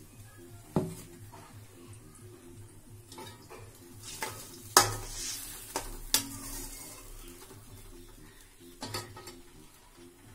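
A utensil stirring in a stainless-steel kadai of simmering fish curry, with a few sharp clinks against the pan, the loudest about five seconds in, over a low sizzle.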